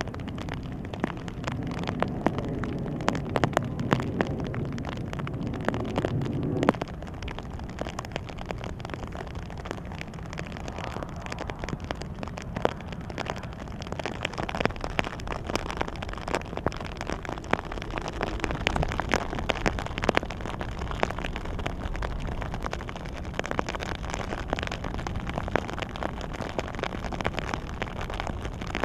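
Heavy rain falling, a dense crackle of many small drop impacts over a steady hiss. A low rumble runs beneath it for the first six seconds or so and then stops abruptly.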